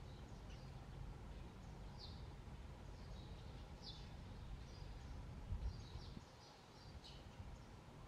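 Birds giving faint, short, high chirps scattered through, over a steady low background rumble, with a soft low bump about five and a half seconds in.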